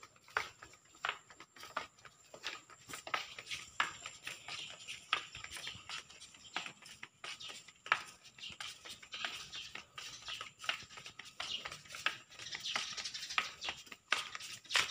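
Footsteps on a hard walkway, a quick, uneven series of light slaps and scuffs at about two a second as people walk along.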